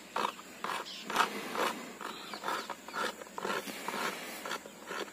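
Hand file rasping a cow's horn in quick back-and-forth strokes, about two or three a second, shaping and trimming the horn.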